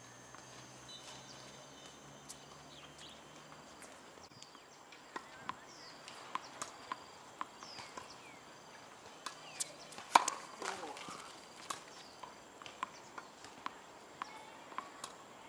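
A tennis ball bounced repeatedly on a hard court before a serve: a run of sharp, short thuds, with one much louder smack about ten seconds in.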